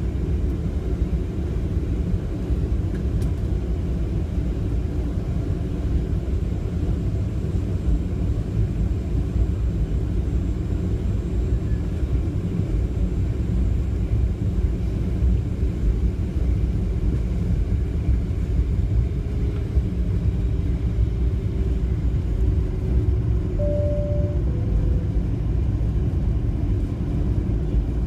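Boeing 737-700 cabin noise while taxiing: a steady low rumble from the engines at taxi power and the wheels rolling on the taxiway. Near the end comes a short two-note falling chime.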